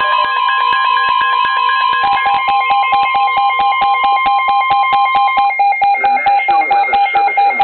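NOAA weather radio alert: the steady 1050 Hz warning alarm tone, heard over the receiver's rapid electronic alarm beeps at about five a second. The alarm tone cuts off about five and a half seconds in, and a synthesized voice starts reading the severe thunderstorm warning under the beeps, which carry on.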